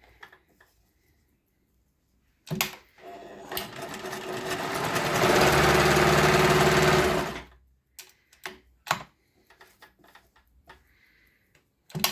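Pfaff 204 sewing machine sewing a zigzag stitch: it starts about a quarter of the way in, picks up speed, runs steadily for a couple of seconds, then stops. A few sharp clicks come before and after the run.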